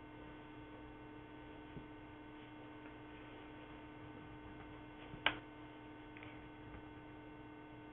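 Steady low electrical hum with faint hiss on the audio line, and one sharp click about five seconds in.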